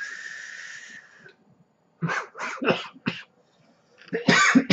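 A long hissing draw through an IGO W14 dripping atomizer for about a second and a half, then a man's coughing fit: four quick coughs about two seconds in and another burst of coughing near the end, from a harsh throat hit.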